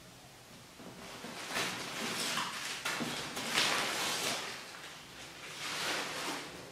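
Plastic bubble wrap and packing inside a cardboard box rustling and crinkling as hands move them, in a few short bursts.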